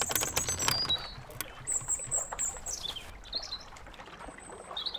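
Birds chirping: short high calls and a few gliding whistles, with a scatter of clicks in the first second and a half.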